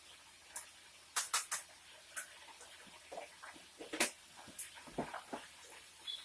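Metal spoon clinking and scraping against a pot while macaroni and cheese is stirred: a run of separate sharp clicks and short scrapes, bunched around the second second and again around the fourth and fifth.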